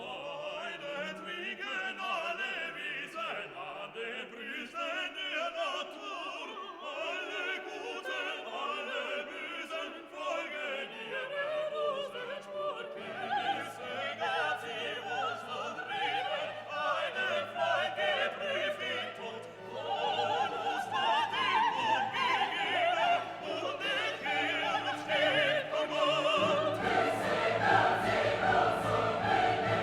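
Background classical music: an orchestra with choral singing in an operatic style, growing fuller about 13 seconds in and again near the end.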